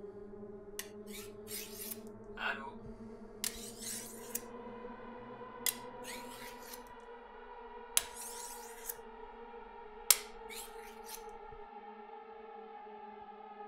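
Knife blade drawn against a sharpening steel in a dozen or so short metallic scraping strokes, unevenly spaced, with two sharper clinks, over a low sustained music drone. The strokes stop about eleven seconds in, and the drone carries on.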